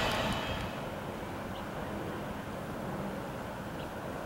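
Freight train rumble dropping off sharply in the first second, leaving a faint, steady low rumble of the receding intermodal train.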